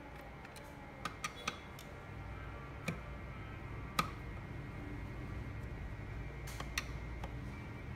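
A thin metal screwdriver clicking and tapping against the screws and plastic housing of a cylindrical speaker being taken apart: a handful of short, sharp ticks, the sharpest about four seconds in, over a low steady hum.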